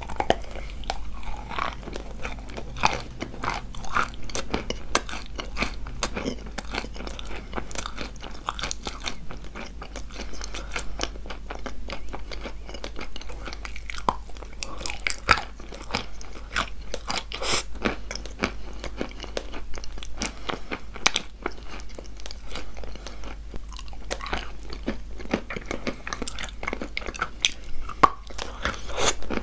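Close-miked crunching and chewing of a wet chalk slab coated in clay paste: irregular sharp crunches, several a second, as the chalk is bitten and chewed.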